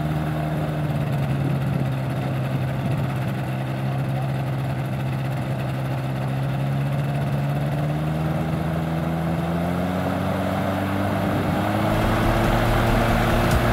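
Bailey-Moyes Dragonfly ultralight's engine and pusher propeller running on the ground. The pitch is steady at first, then rises slowly through the second half as the engine speeds up, getting a little louder near the end.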